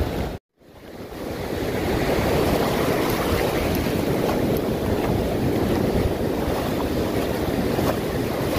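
Ocean surf breaking and washing up a sandy beach, a steady rush, with wind buffeting the microphone. The sound cuts out for a moment about half a second in, then fades back up.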